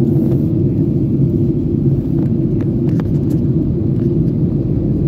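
Steady low drone of jet airliner cabin noise in flight, from the engines and the air rushing past the fuselage, heard from a window seat.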